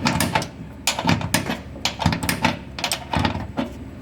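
A wrench clicking and clinking against metal as a shock-absorber mounting bolt in a washer-dryer is tightened. The clicks are sharp and irregular, a few a second, and stop shortly before the end.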